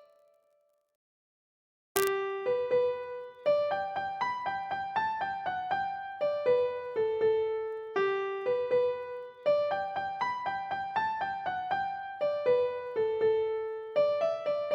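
Background piano music, a melody of single notes over light chords. It begins after about two seconds of silence, with a click at the start.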